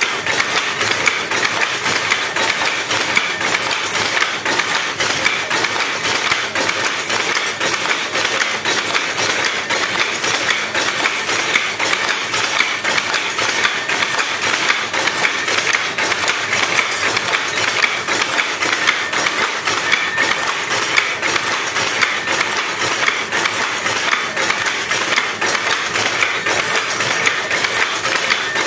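Power loom running, a loud, steady, rapid mechanical clatter that goes on without a break.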